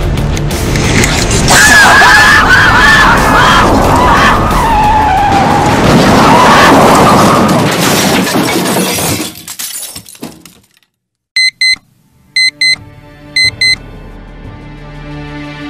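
Loud dramatic music with crashing, shattering noise fades away to silence. Then a digital alarm clock beeps in three quick double beeps, about a second apart, as low eerie music comes in.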